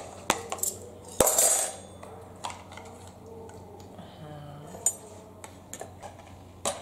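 Metal spoons and plates clinking and clattering as plates and spoons are set out, a string of light clinks with one louder, longer clatter about a second and a half in.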